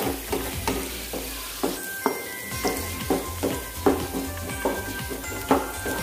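Chopped onions and curry leaves sizzling in hot oil in a non-stick frying pan, sautéing towards light brown, stirred with a spatula in quick regular strokes about three a second.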